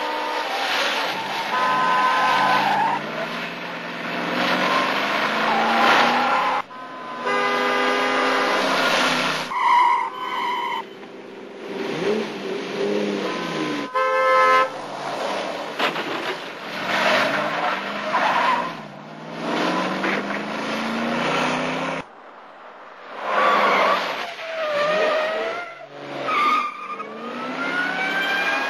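Car-chase soundtrack from a film: car engines running and revving, tyres squealing and car horns sounding, broken by several abrupt edits. Near the end an engine revs up in rising sweeps.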